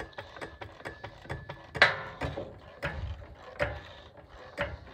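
Metallic clicks and clanks from hand work on a truck wheel being taken off, with a slight ring to them: a quick run of light clicks, then a few sharper knocks spaced out, the loudest about two seconds in.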